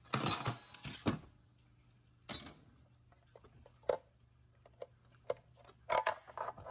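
Light clicks, taps and clinks of small hard parts as the filter screen on a Subaru 4EAT automatic transmission's valve body is worked loose by hand. There is a quick cluster in the first second, a single sharp click a little past two seconds, scattered faint ticks, and a few more clicks near the end.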